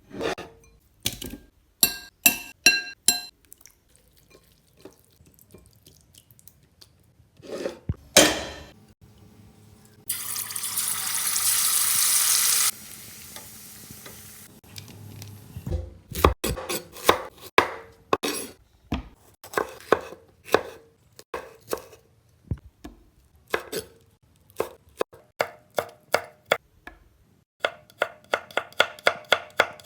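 Knife chopping food on a cutting board: a few quick strikes, then a long series of blows that speed up near the end to about three or four a second. Partway through, a loud hiss lasts about two and a half seconds and cuts off suddenly.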